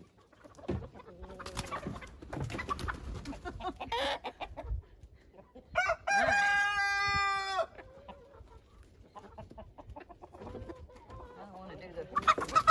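Chickens clucking in a pen, with one long rooster crow about six seconds in and a louder burst of agitated squawking near the end.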